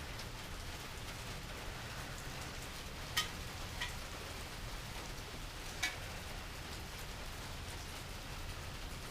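Steady rain falling, with three short sharp ticks about three, four and six seconds in.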